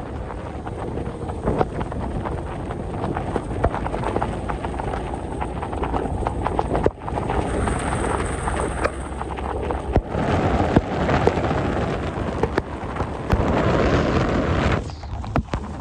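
Wind rumbling on the microphone and road noise from a moving vehicle, with many crackling knocks, growing louder about ten seconds in.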